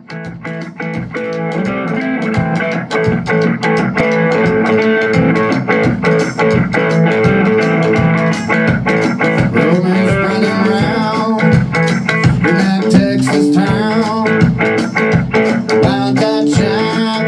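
A rock band playing: electric guitar, electric bass and a drum kit, with a man's singing voice joining about halfway through.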